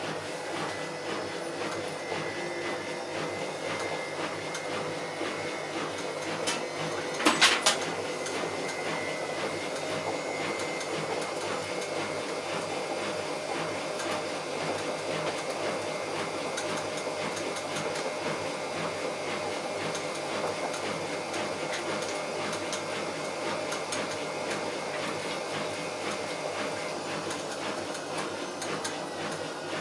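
Bauknecht WA Plus 844 washing machine running with its drum turning, a steady, fast-rhythmed mechanical noise from a damaged drum bearing. A brief loud clatter comes about seven seconds in.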